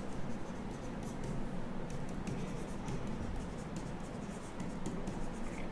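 Stylus scratching and tapping on a tablet during handwriting: irregular light ticks, thickest in the middle, over a steady low room hum.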